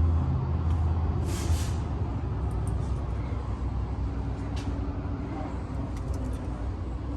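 A motor vehicle's engine running with a low rumble that fades over the first couple of seconds, and a short burst of hiss about a second in.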